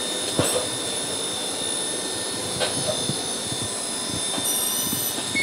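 Digital mammography unit making an X-ray exposure: a steady mechanical hum, then about four and a half seconds in a brief high-pitched whine, and a short beep starting at the very end as the exposure completes.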